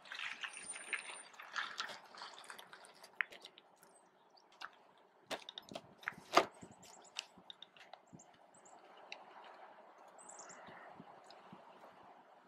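Scattered small clicks and knocks of the camera being handled, the sharpest about six seconds in, over a faint steady outdoor hiss.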